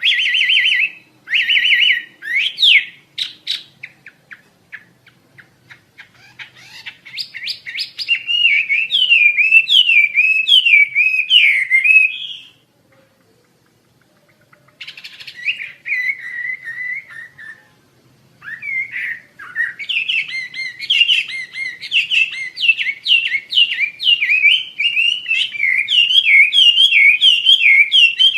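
A songbird known to Indonesian bird keepers as 'wambi Asia' singing loudly: rapid chattering trills and runs of quick, repeated up-and-down whistled notes, with a silent pause of about two seconds around the middle before the song picks up again.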